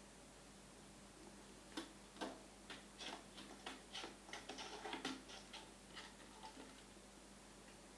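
Light, irregular plastic clicks and knocks from a Catit Design Senses cat toy being played with. They come in a cluster starting about two seconds in and lasting roughly five seconds, over a faint steady hum.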